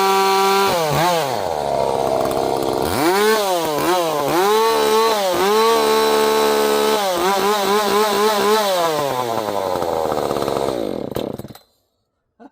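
Ported Echo CS-590 59.9cc two-stroke chainsaw running at high revs, its pitch dropping and climbing back several times, then winding down and stopping about eleven seconds in.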